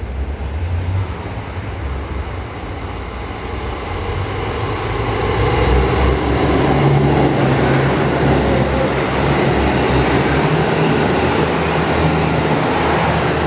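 A train running through a station: a rail rumble with a low motor tone, growing louder over the first few seconds and then holding loud and steady.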